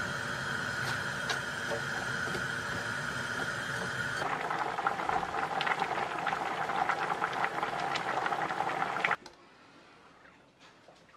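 Galbi-jjim (braised short ribs and vegetables) boiling in a frying pan, with a dense bubbling crackle and small pops. Before it, a steady kitchen hum with a faint whine; about nine seconds in, the sound cuts to near-quiet with a few light clicks.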